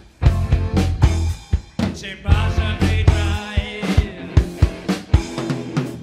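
Rock band playing live: electric guitar lead over a drum kit and bass guitar.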